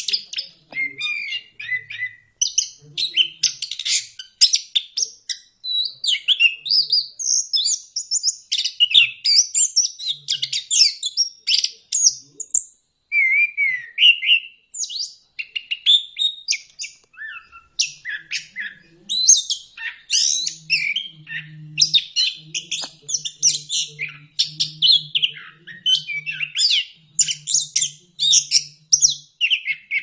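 A thrush singing a long, rapid, varied song of whistles and chirps with only short pauses, the continuous 'ngeplong' singing used as a tutor recording for caged birds.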